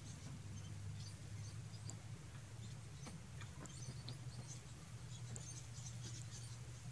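Faint crackling and small ticks of a dried activated-charcoal and glue face mask being peeled off the skin of the nose, over a steady low hum.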